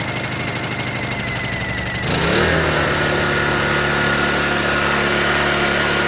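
Honda EU2000i inverter generator's small single-cylinder four-stroke engine running just after a choked start, with a fast pulsing beat; about two seconds in it revs up and settles at a steady, higher speed in high mode.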